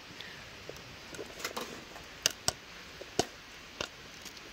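Popcorn kernels popping inside a covered pan: sharp, scattered pops, about eight in all, a few each second, with the loudest coming in the middle of the stretch.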